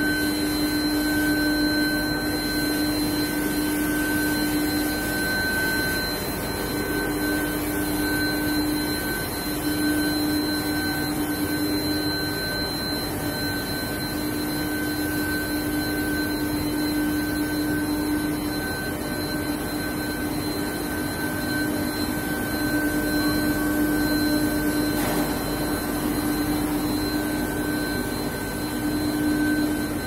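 Steel-bar induction hardening and tempering line running: a steady machine noise with a low hum and a higher whine held on top, both swelling and fading slightly every few seconds.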